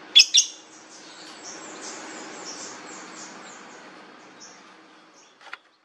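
Long-tailed shrike (cendet) calling: two loud, sharp high notes, then a fast run of softer high twittering notes that fades away, and one more sharp note near the end. A faint steady low hum runs underneath.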